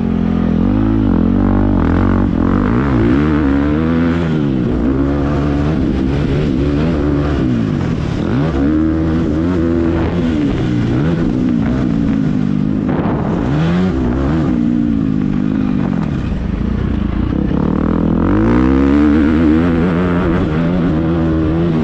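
KTM 350 SX-F dirt bike's single-cylinder four-stroke engine, ridden hard on a motocross track, revving up and down again and again through the gears, with the pitch rising and falling every second or two.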